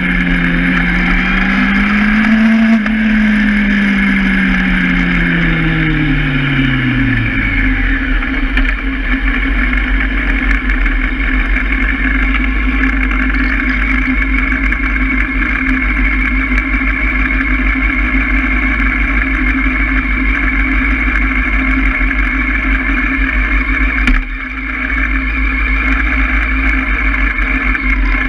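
Honda Hornet motorcycle engine slowing down, its note falling over the first several seconds, then idling steadily while the bike stands still.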